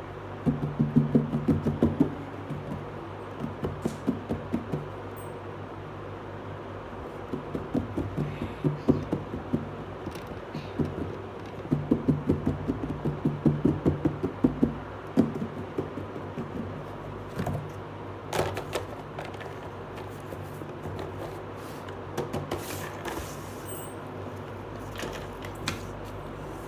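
Fingertips tapping rapidly on a cardboard box lid in several quick bursts, over a steady low hum. In the second half there are softer scattered scrapes and rustles of handling.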